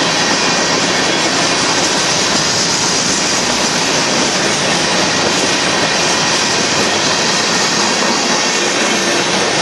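Freight train of covered hopper cars rolling past, a loud, steady roar of steel wheels running on rail.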